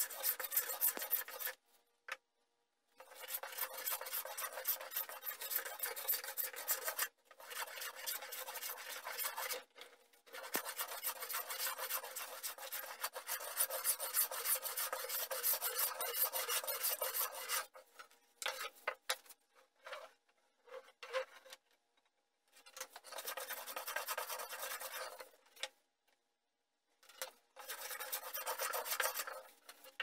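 Wooden hand plane shaving a laminated wooden bench top to level it: long hissing strokes, then a run of short quick strokes, then two more long passes.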